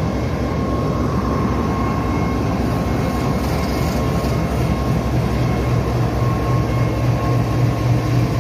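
GEU-40 diesel-electric locomotive running under power as it departs and passes close by: a steady engine drone with a thin steady whine over it, the deep hum growing stronger in the second half.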